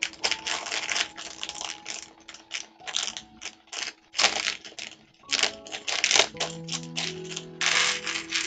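Small plastic LEGO pieces clicking and rattling in their bag as it is handled, ending in a brief clatter as they are tipped into a plastic sorting tray. Soft background music plays underneath.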